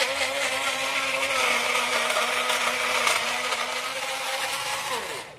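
Electric kitchen blender running steadily as it purées chopped bilimbi fruit and fennel seeds in warm water. About five seconds in it is switched off and the motor winds down with a falling pitch.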